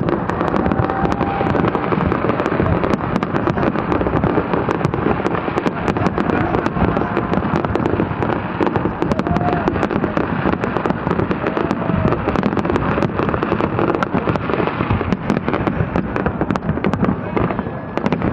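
Dense, continuous barrage of fireworks: rapid bursts and crackles running together without a break.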